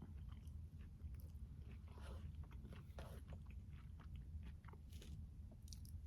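Close-miked chewing of a juicy tomato, peach and basil salad: soft, irregular wet clicks and crunches, heaviest about two and three seconds in, over a steady low hum.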